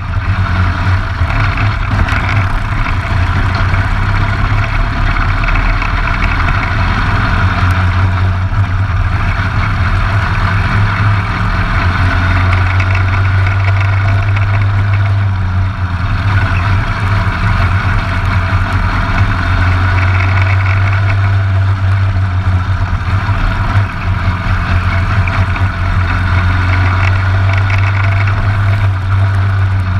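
Briggs & Stratton LO206 single-cylinder four-stroke kart engine running hard at race speed, heard close up from the kart itself. Its note eases off twice, around the middle and a little later, and picks up again each time, as the throttle is lifted and reapplied.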